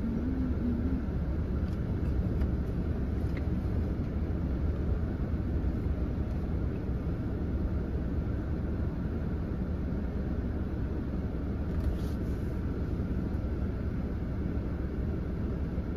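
Steady low rumble of a stationary car idling, heard from inside its cabin.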